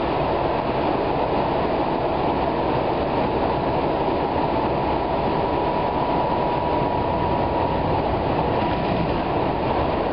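Light-rail car running along the track, heard from inside the passenger cabin: a steady rumble and rush of wheel and running noise. A faint steady whine joins in for a few seconds midway.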